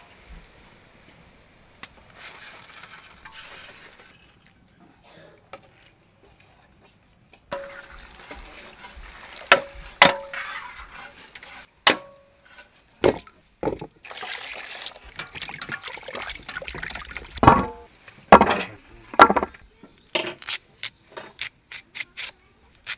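Yellow peas frying in oil in an iron kadai with a faint sizzle. A metal slotted skimmer clinks and knocks against the iron and aluminium pots, some strikes ringing briefly, as the fried peas are scooped out. Near the end, quick repeated cutting strokes of a carrot against a boti blade.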